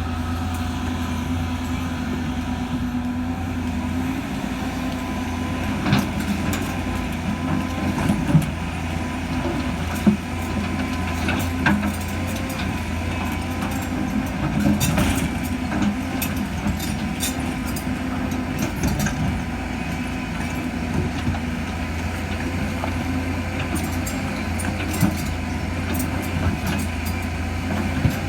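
Heavy diesel engine of construction machinery running steadily, with scattered sharp knocks and clunks.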